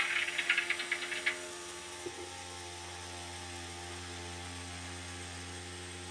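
Model railway turntable drive: a short burst of rapid mechanical clicking and rattling in the first second, then only a faint, steady low hum from the replacement motor and gearbox as it runs quietly.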